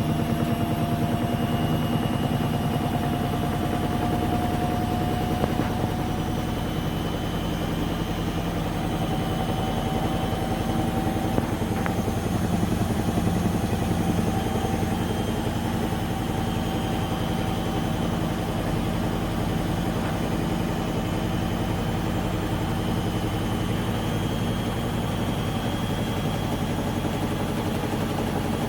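Washing machine in its spin cycle, the motor's whine rising slowly in pitch over a low drone with a fast, even pulsing; the heavy vibration is the sign of a machine that has not been levelled.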